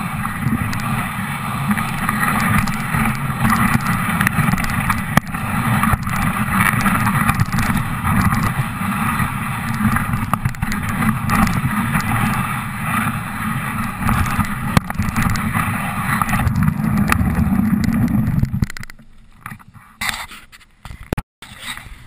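Dog sled moving over snow: a steady rushing of the runners on the snow, mixed with wind on the microphone. It stops abruptly about nineteen seconds in as the sled comes to a halt, leaving a few scattered knocks.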